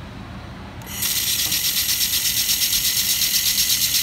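LaserMen LM-2000W handheld laser welder starting a wire-fed fillet weld on steel plate about a second in: a loud high hiss with crackle that pulses about five or six times a second, over a faint steady high tone.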